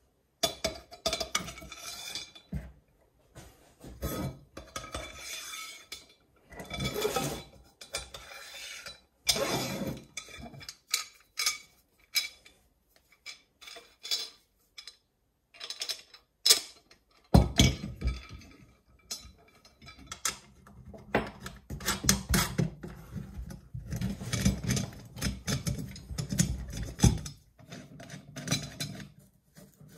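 Metal parts of a chainsaw mill kit being handled on a wooden workbench: steel bolts, nuts and washers clinking, and metal rails and brackets knocking on the bench top, in irregular bursts. About halfway through the handling gets busier, with steady dull knocks and rattles among the clinks.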